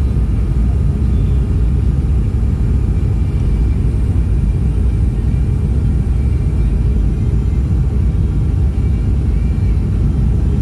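Steady low rumble inside a jet airliner's cabin on final approach, the engine and airflow noise heard from a window seat.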